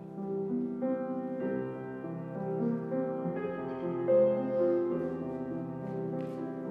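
Slow instrumental music on a keyboard instrument: held chords that change every second or so.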